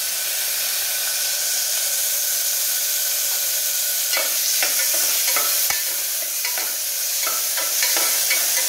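Chopped onion and tomato sizzling in hot oil in an aluminium pressure cooker pan. From about four seconds in, a spoon stirring the mix clinks and scrapes against the pot in short sharp knocks.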